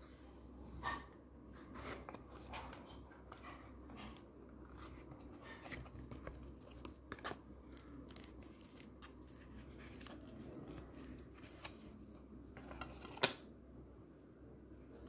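Hands handling smartwatch packaging: scattered light clicks, taps and rustles of cardboard and plastic as the watch is pried from its box tray, with one sharper click near the end.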